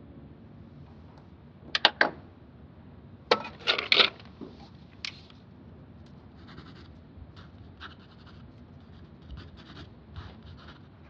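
Pen writing on paper on a desk: soft scratching strokes, with a few sharp clicks and taps about two, three to four and five seconds in.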